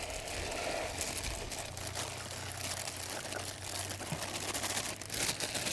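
Thin plastic bag crinkling as casters (fly-pupa bait) are shaken out of it into a bucket: an irregular crackle and rustle, a little louder near the end.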